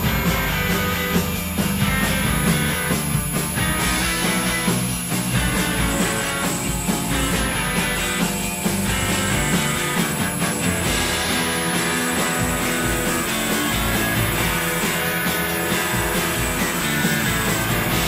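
Background rock music with a steady beat.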